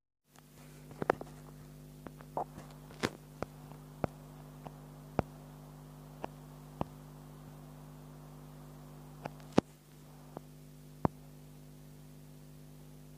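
Steady low electrical hum with about a dozen short, sharp clicks and taps scattered irregularly through it; the loudest clicks come about a second in and again near the end.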